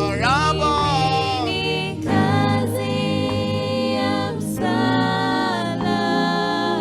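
Gospel song with group singing in harmony over sustained keyboard chords, the voices sliding between held notes.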